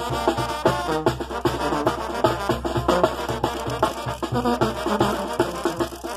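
Brass band playing a lively dance tune: brass melody over a steady, even beat.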